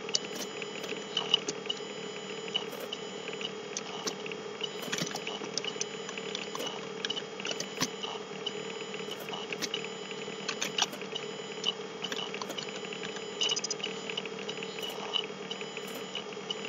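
Computer keyboard keys clicking in short, irregular runs as code is typed, over a steady background hum and hiss.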